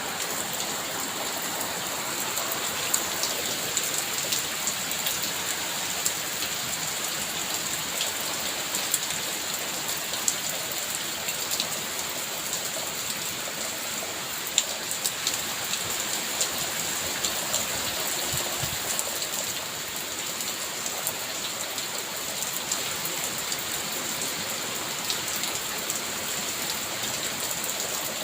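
Steady rain in a rainforest: an even hiss with individual drops ticking sharply here and there, and a constant high-pitched tone running over it.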